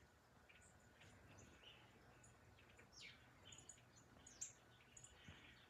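Near silence with faint, scattered bird chirps and calls, including a few short falling notes around the middle.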